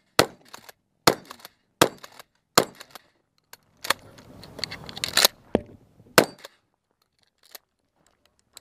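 Remington 870 Tactical pump-action 12-gauge shotgun firing about seven shots in quick succession, each a sharp blast, with the slide racked between shots. The firing stops about two-thirds of the way through, leaving only a few faint clicks.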